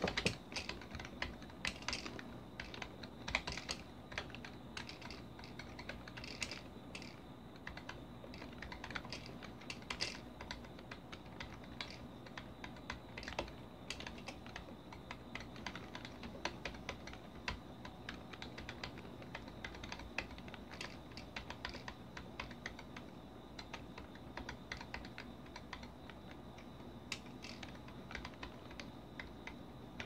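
Typing on a computer keyboard: a continuous, irregular stream of key clicks, several a second, with a few heavier keystrokes in the first few seconds.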